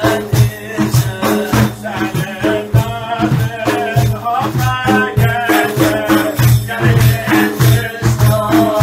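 Several large def frame drums beaten in a steady rhythm, their jingles shaking on each stroke, with a man's voice singing a drawn-out, ornamented line over them.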